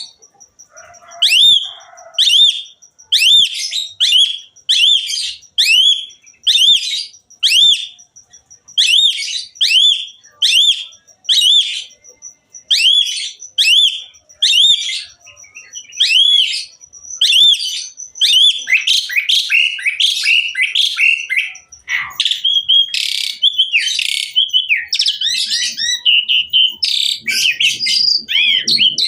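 Asian pied starling (jalak suren) singing: short arched whistled phrases repeated about once a second, turning about two-thirds of the way through into denser, continuous, varied song.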